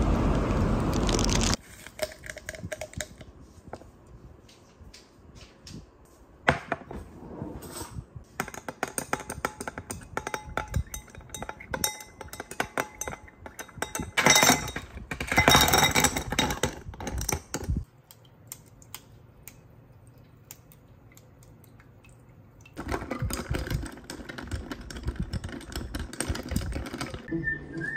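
Ice cubes clinking against a glass as a long metal stirrer mixes an iced drink, in clusters of sharp clicks with a louder clatter about halfway through. It opens on a second or so of street traffic noise.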